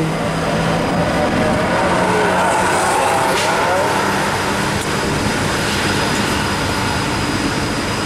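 A large tour bus passing close: a loud, steady rush of diesel engine and tyre noise with a low engine hum.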